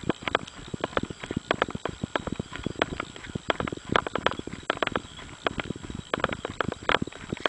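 Footsteps of a runner on a gravel fire road, the shoes crunching into loose gravel at about three strides a second, with the jolting handling of a hand-held camera.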